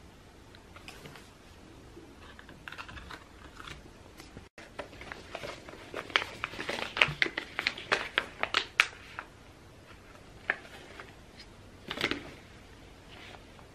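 Plastic sheet-mask pouch being torn open and crinkled by hand: a dense run of sharp crackles from about five to nine seconds in, then a short rustle near twelve seconds as the mask sheet is pulled out and unfolded.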